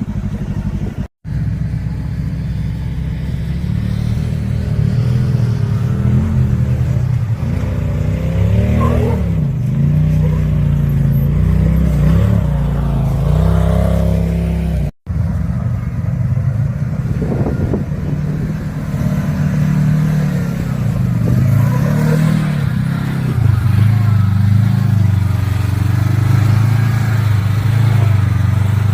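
Off-road vehicle engine running under load, its pitch rising and falling with the throttle as it drives a trail. The sound drops out briefly twice, about a second in and about halfway.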